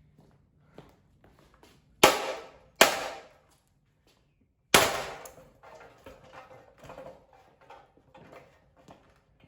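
Parts of a Hampton Bay Gazebo ceiling fan being struck hard three times, each blow a sharp crack with a short ring, the last about two seconds after the first two; a run of lighter rattling and clattering follows.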